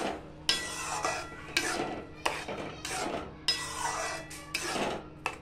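Steel spoon stirring and scraping a wet semolina mixture against the sides of a steel kadhai, in repeated strokes about once or twice a second.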